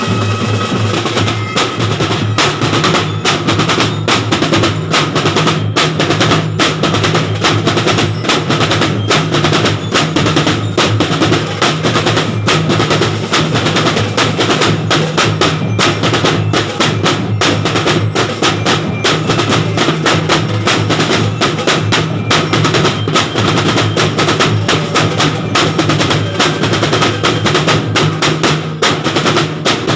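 Marching drumline of a drum and bugle corps playing a fast, unbroken run of drum strokes.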